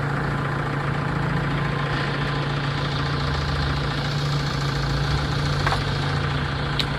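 Diesel engine of a heavy earthmoving machine running steadily with an even low hum, and two short sharp clicks near the end.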